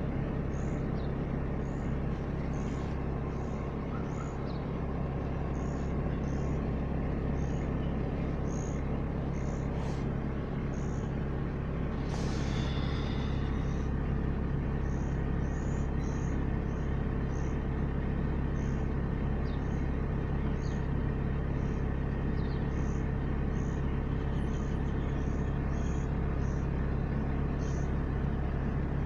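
Heavy monsoon rain falling steadily, with a steady low hum underneath. A brief high squeal sounds about twelve seconds in.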